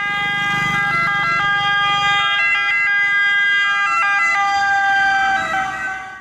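Electronic ambulance siren playing a steady two-tone wail that steps back and forth between two pitches, fading out near the end.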